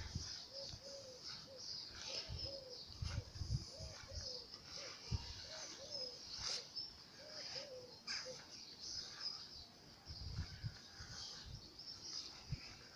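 Garden birds singing, with many short high chirps and twitters throughout. A run of low, evenly repeated arching notes goes along under them for about the first eight seconds.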